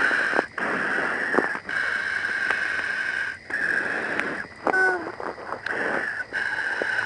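Steady hiss and breathing inside a protective suit's helmet, picked up by its own microphone; the hiss breaks off briefly every second or so. A short pitched sound that glides down comes about five seconds in.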